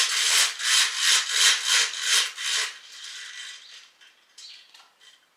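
Window roller blind being pulled closed by hand: a rhythmic rasping rub, about three strokes a second, that stops about three seconds in, followed by a few faint rustles.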